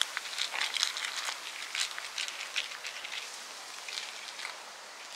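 Cats eating food from bowls: quick, irregular crisp clicks and smacks of chewing and licking over a faint hiss, thinning out toward the end.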